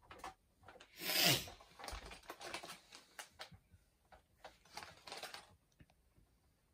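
Plastic Mega Construx blind-bag figure packaging rustling and crinkling in irregular bursts, with a louder rasp about a second in.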